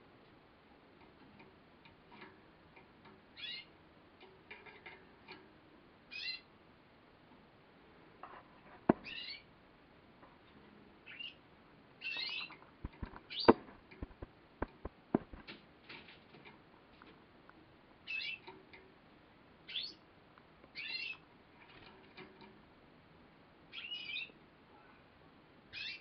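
Female Gloster Consort canary giving short chirping calls every second or two, with a few sharp clicks in between, the loudest about halfway through.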